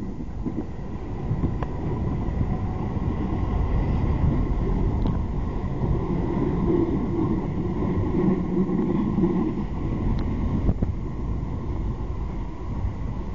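Train running along the track, heard from on board: a steady rumble with a few light clicks. A humming tone comes up for a few seconds midway.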